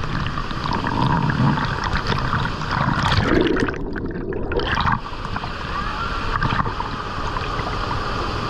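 Rushing water in a river canyon: a steady, noisy wash that sounds briefly muffled about halfway through.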